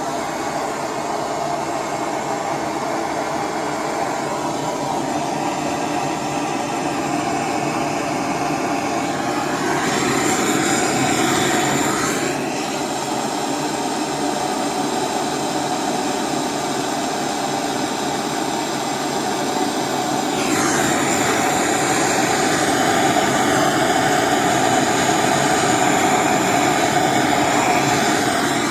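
Gas torch flame running with a steady rushing noise, heating metal parts to tin them with solder. It gets louder briefly about ten seconds in and again from about twenty seconds in.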